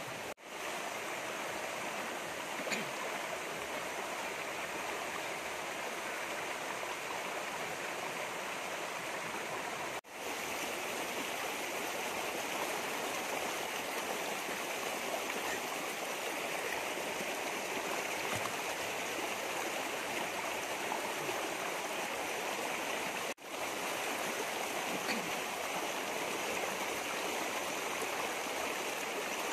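Shallow stream running over rocks, a steady rushing of water that drops out briefly three times.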